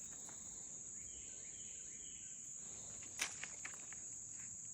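Steady high-pitched insect chorus, with a sharp click about three seconds in followed by a few fainter ticks.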